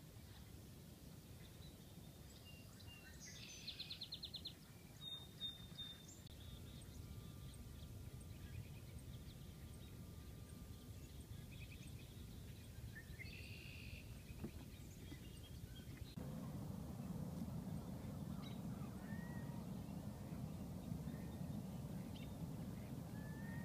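Quiet coastal marsh ambience: steady low outdoor noise with scattered bird calls, a rapid trill a few seconds in and another call around the middle. The low background noise grows louder about two thirds of the way through, with a few short rising-and-falling calls near the end.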